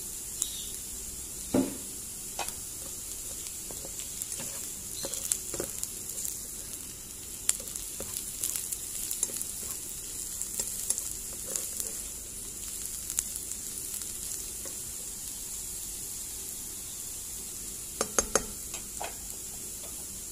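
Beetroot, carrot and onion strips sizzling as they fry in oil in a pan, with a spatula scraping and knocking against the pan now and then as they are stirred. The loudest knocks come about a second and a half in and in a quick cluster near the end.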